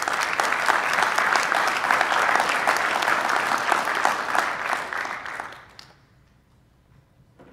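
Audience applauding, a dense clapping that dies away about six seconds in.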